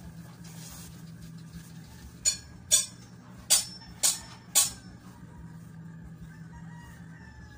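Printed cotton fabric being handled and shaken out, five sharp swishes in quick succession in the middle, over a steady low hum.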